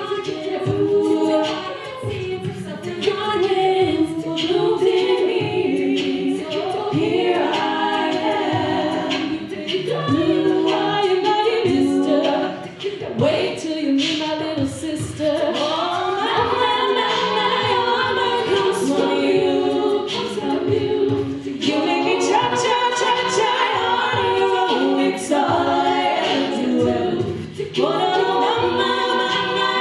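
Women's a cappella group singing a pop arrangement in several-part harmony, voices only with no instruments.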